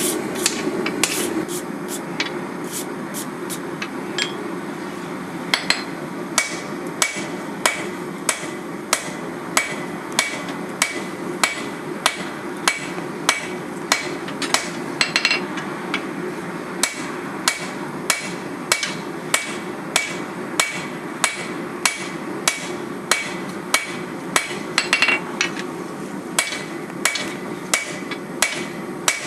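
Forging hammer striking a hot, forge-welded billet of shear steel and wrought iron on an anvil, drawing it out into a sword blank. There are a few scattered blows at first, then from about five seconds in a steady run of sharp, ringing strikes a little under two a second, over a constant rushing noise.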